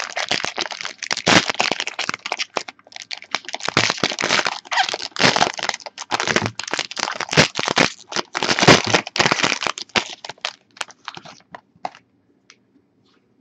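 Gold foil wrapper of a trading-card pack crinkling and crackling as it is torn open and peeled off the cards, dying away near the end.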